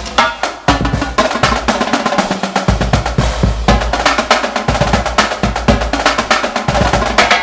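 Notation-software playback of a marching drumline cadence: sampled snare drum rolls and rapid strikes over tenor drums, bass drums and cymbals, in a fast, dense rhythm.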